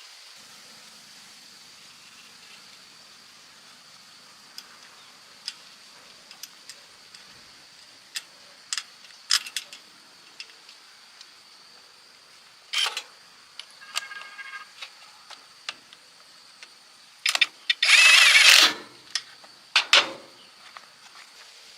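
Scattered clicks and clinks of hand work on metal engine parts, with a short louder scraping rattle near the end, over a faint steady high insect drone.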